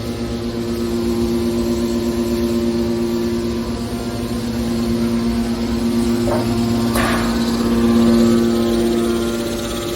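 Metal baler machine running with a steady mechanical hum, and two short clanks about six and seven seconds in.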